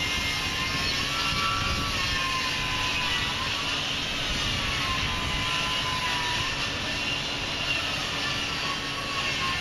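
Heavy pile-driving machinery running steadily, with a whine that slowly wavers up and down in pitch and no separate hammer blows.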